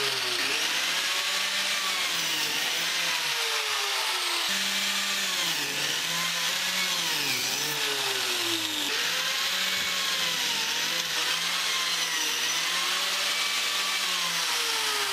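Electric biscuit joiner running and cutting slots in pine boards, its motor whine rising and falling repeatedly as the blade bites into the wood and frees again.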